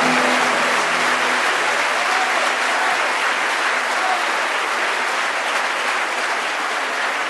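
Congregation applauding, a dense steady clapping that slowly fades; the song's last held note dies away in the first second and a half.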